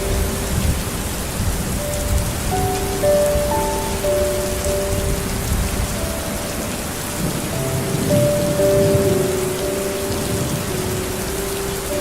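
Steady, even rain with low rumbles of thunder. A soft, slow melody of held notes plays over it.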